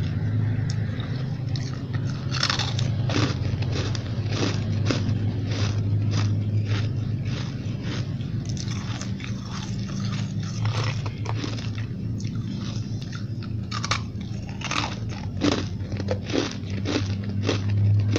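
Someone biting and chewing chunks of ice, a dense run of irregular crackling crunches as the ice breaks between the teeth, over a steady low hum.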